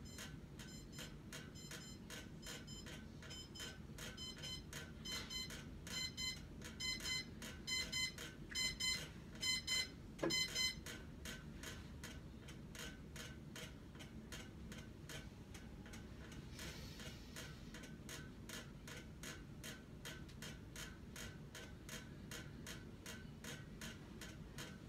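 Electronic alarm beeping in quick pulses that come in louder groups from about four seconds in, then cuts off about eleven seconds in. Steady ticking carries on under it and after it.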